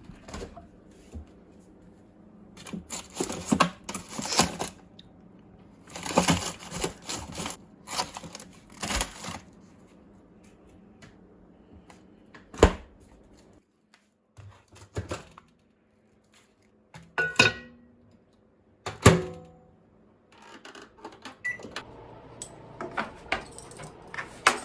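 Objects being handled, with clusters of small clicks and knocks. There is one sharp knock about halfway through and a louder knock with a short ring a few seconds later.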